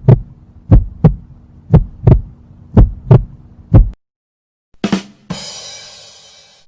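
Heartbeat sound effect: deep double thumps, lub-dub, about one pair a second, five times. Near the end a short hit is followed by a bright ringing sound that fades away.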